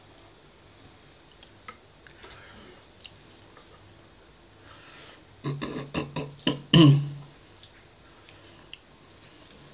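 Faint chewing, then about five and a half seconds in a short run of loud, wet slurps of spaghetti bolognese, the last one sliding down in pitch.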